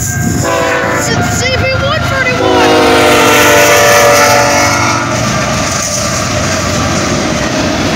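Canadian Pacific freight train locomotive horn blowing a long blast as the lead diesel locomotives reach the crossing, loudest a few seconds in. It gives way to the steady rumble and wheel clatter of the locomotives and freight cars rolling past close by.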